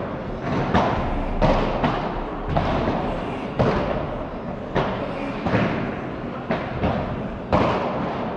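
Padel rally: the ball struck back and forth with padel rackets, about a dozen sharp hits and bounces, roughly one a second, echoing in a covered hall.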